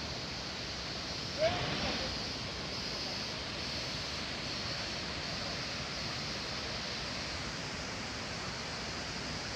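Steady rushing of the Panimur waterfall on the Kopili river, water pouring and churning over rock. A brief sharp sound, like a short voice or call, stands out about one and a half seconds in.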